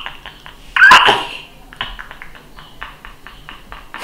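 A man laughing hard: a loud, high squeal of laughter about a second in, then a run of short breathy laugh pulses, about five a second.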